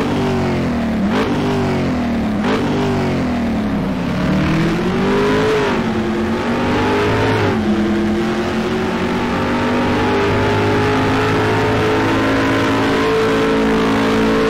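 Car engine accelerating through the gears: its pitch climbs and drops back sharply at each shift, several times in the first eight seconds, then holds a high, slowly rising note.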